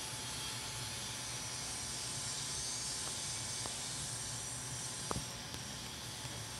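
Steady background hiss over a low hum, with a faint short click about five seconds in.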